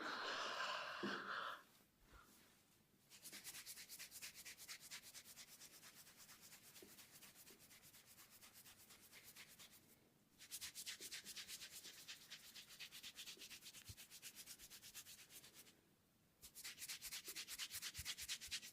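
Hands rubbing briskly through hair and over the scalp in a head massage: fast, even, hissing rub strokes in three long runs with short pauses between, after a brief louder rustle at the start.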